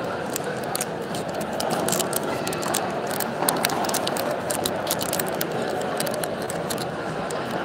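Scattered hand clapping from a crowd over steady crowd chatter, the claps densest from about two to six seconds in.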